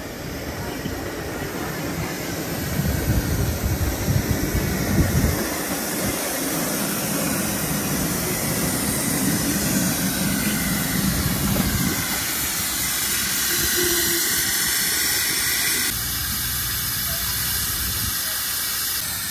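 Tinkerbell-class 7.25-inch gauge miniature steam locomotive running into the platform with a continuous hiss of escaping steam. Wind buffets the microphone as a low rumble in the first half.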